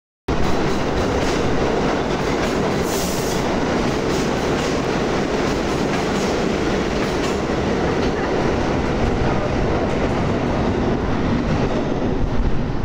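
New York City subway train running along the far track of the station: a steady rumble with wheels clattering on the rails. Short high screeches come now and then in the first half, the strongest about three seconds in, and the noise eases a little near the end as the train clears the platform.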